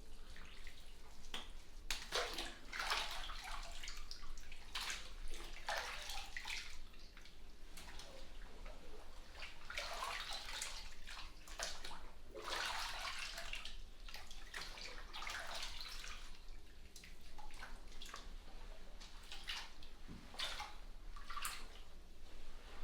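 Bathwater sloshing and trickling in a bubble bath, in irregular splashes of a second or two each, as someone moves in the tub and scoops water.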